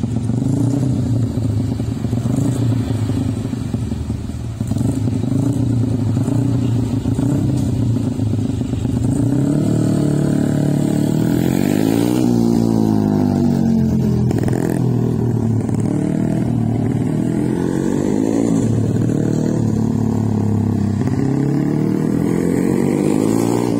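Small engine of a mini racing motorcycle running steadily at first, then from about ten seconds in revving up and down again and again as it is ridden, the pitch climbing and falling with each burst of throttle.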